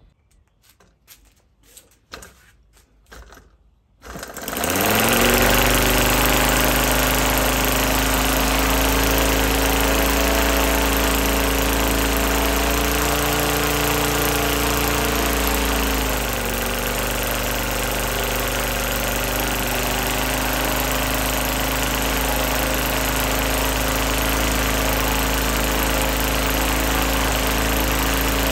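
A Morton M5 five-cylinder four-stroke scale model radial engine: after a few faint clicks it starts about four seconds in and runs steadily with its propeller spinning. Its speed rises a little about twelve seconds in and drops back about four seconds later.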